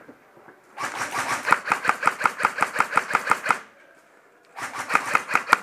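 Airsoft electric rifle firing full-auto: a rapid, even stream of shots lasting about three seconds, then a second shorter burst after a brief pause.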